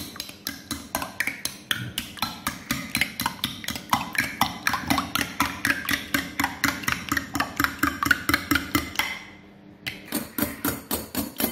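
Metal utensil beating egg whites in a glass bowl, whipping them to a froth: rapid, even clicking of metal against glass, about four to five strokes a second, pausing briefly near the end before the beating resumes.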